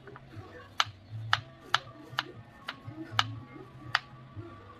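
Kitchen knife slicing shallots on a bamboo cutting board: about seven sharp taps, roughly every half second, as the blade cuts through and strikes the board. Background music plays underneath.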